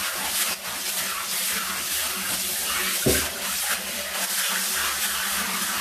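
Water running from a handheld shower head and spraying onto a wet cat's fur in a bathtub, a steady hiss, with one short thump about three seconds in.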